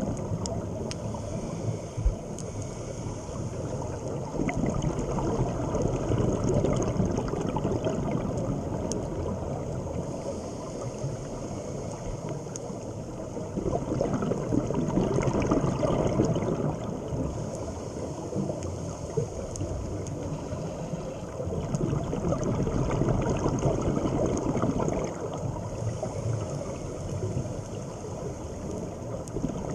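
Underwater sound picked up by a diver's camera: a low, muffled rumble of water and a scuba diver's exhaled bubbles, swelling louder every several seconds with the breathing, with a few faint clicks.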